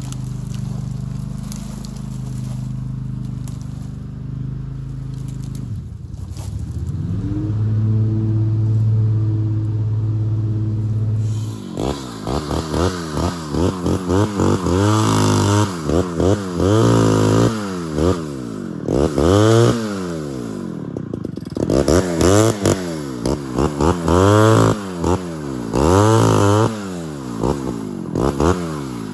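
An engine idles steadily, its pitch stepping up about seven seconds in. From about twelve seconds in, a two-stroke chainsaw is revved up and down over and over in short bursts.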